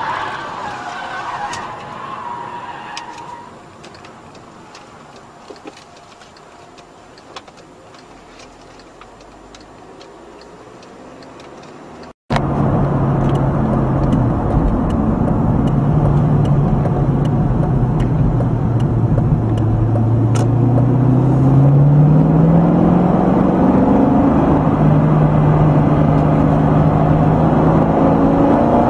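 Road and wind noise inside a fast-moving car, fading quieter. About twelve seconds in it cuts abruptly to a much louder car engine heard from inside the cabin as the car accelerates, its pitch dipping and then climbing before holding steady.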